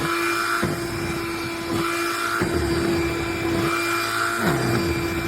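Cordless handheld vacuum running steadily with a constant motor whine, its sound swelling and fading about every two seconds as it is worked back and forth.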